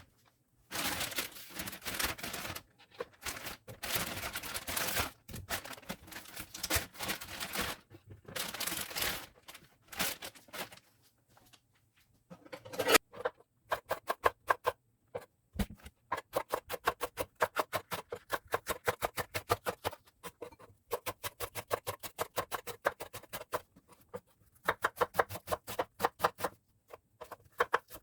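Knife chopping vegetables on a cutting board: fast, even strokes at about five a second, in runs with short pauses, starting about halfway through. Before that come several one-to-two-second stretches of rustling, scraping noise.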